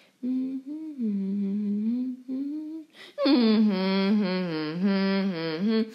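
A voice humming: a held tone whose pitch wavers gently, then, after a short break about three seconds in, a louder and longer wavering tone.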